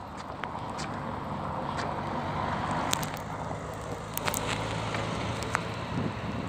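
A police van driving past: a steady engine hum with tyre noise, along with scattered light clicks and knocks.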